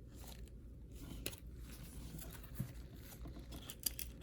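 Faint rustling and light ticks of cardboard trading cards being slid and flipped through by hand, with a few sharper ticks scattered through.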